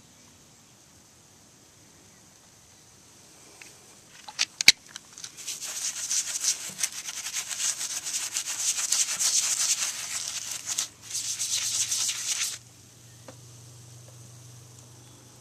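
Stiff-bristled wheel brush scrubbing the spokes of a wet, foam-covered alloy wheel: a few sharp knocks as the brush meets the rim, then steady scratchy scrubbing for about seven seconds, pausing briefly once and cutting off near the end.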